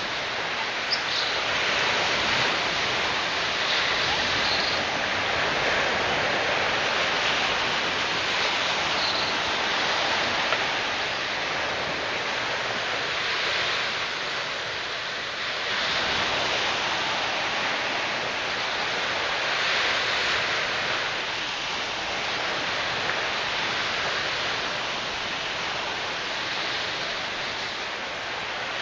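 Small waves breaking and washing up a sandy beach: a steady hiss of surf that swells and eases every few seconds.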